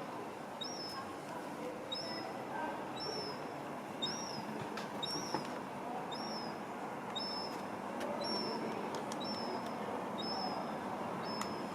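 Gull fledgling whining: a string of short, thin, high-pitched begging calls, about one or two a second, over a steady hum of city background noise.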